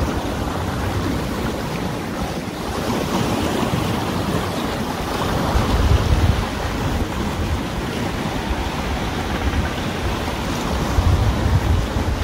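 Small waves washing and breaking against shoreline rocks, with wind buffeting the microphone in gusts, strongest about halfway through and near the end.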